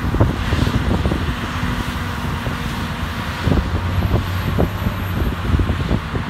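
Heavy snow-removal machinery engine running steadily, with strong gusty wind buffeting the microphone.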